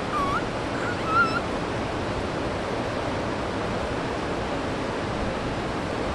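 Steady rush of flowing river water, with two short, wavering, high-pitched animal calls in the first second and a half; the second call is the louder.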